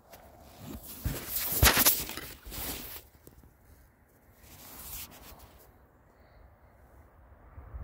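Rustling and scraping of close handling noise: hands, clothing and the camera brushing together. It is loudest in a run of bursts from about one to three seconds in, with a softer one around five seconds.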